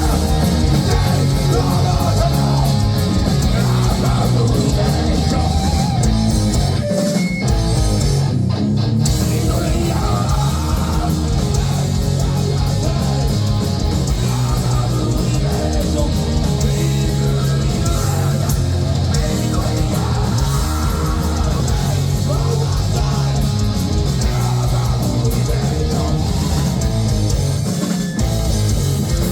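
A heavy metal band playing live: loud, continuous guitar-driven metal, with a little singing.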